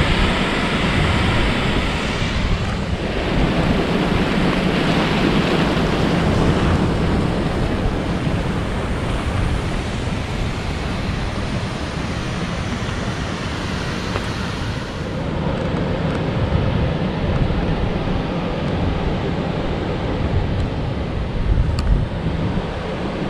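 Steady rushing noise with wind buffeting the microphone in gusts.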